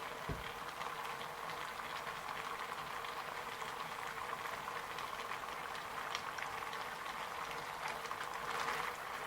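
A pot of eru soup bubbling steadily at the boil, a fine crackle of many small bubbles popping. A soft low bump sounds just after the start.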